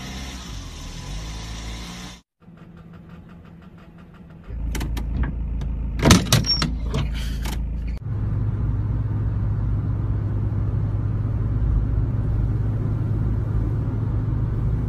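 Car noise across several short clips: in-cabin engine and road noise, a loud clattering with a brief squeal about six seconds in, then a steady low drone of a car driving.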